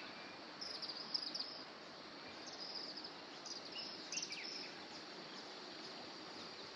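Outdoor bush ambience: a steady high insect drone with scattered short bird chirps, the loudest chirps about a second in and about four seconds in.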